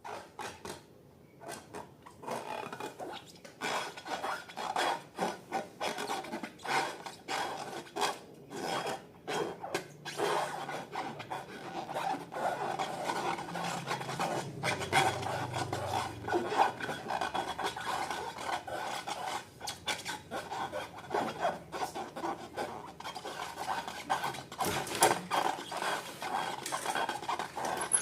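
Slime being worked by hand: a continuous run of crackles and rubbing noises.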